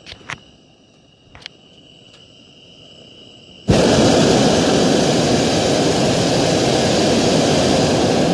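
Hot air balloon's propane burner firing overhead: a single steady roaring burn of nearly five seconds that starts abruptly about three and a half seconds in and cuts off sharply at the end. Before it, a few light clicks and a faint steady high tone.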